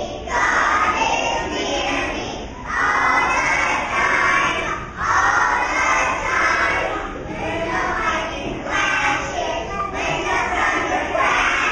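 A group of preschool children singing a song together, loudly, in phrases of a couple of seconds with short breaks between them.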